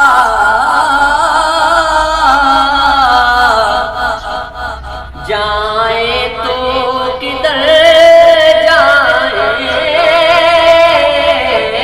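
A man singing a naat solo: long, drawn-out phrases with wavering, ornamented held notes, and a short break between phrases about four seconds in.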